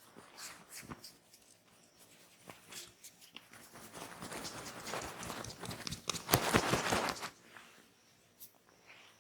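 Hands rubbing and working oiled skin in a back massage. A few light clicks come first, then a swishing friction sound builds and is loudest about six to seven seconds in before fading.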